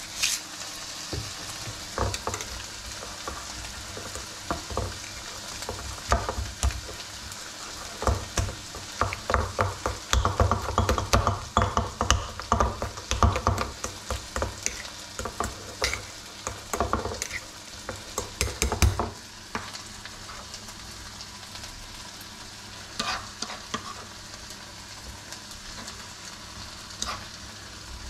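A spoon mashing and stirring avocado in a small stainless steel bowl: irregular scraping and clinking of metal on the bowl with soft wet squelches, busiest in the middle and sparser near the end. A hand spice grinder clicks briefly at the very start.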